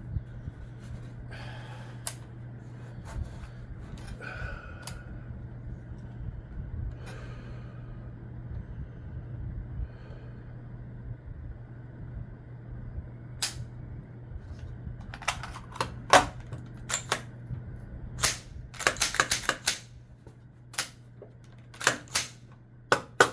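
Sharp metallic clicks and clacks of a rifle's action and magazine being worked by hand to clear a malfunction. A few scattered clicks at first, then a quick run of them through the last ten seconds, over a steady low hum.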